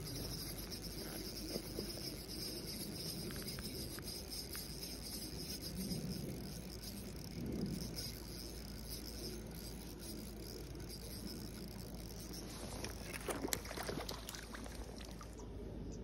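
Spinning reel being cranked steadily with a faint high whirr while a hooked trout is played toward the landing net; the cranking stops about ten seconds in. Near the end comes a short cluster of splashes and knocks, the loudest sounds here.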